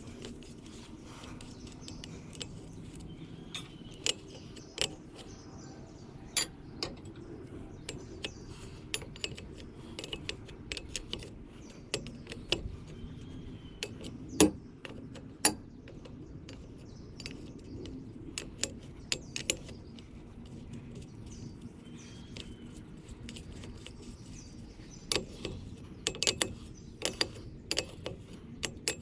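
Irregular metallic clicks and clinks of hand tools on a backhoe's hydraulic hose fittings, with one louder knock about fourteen seconds in.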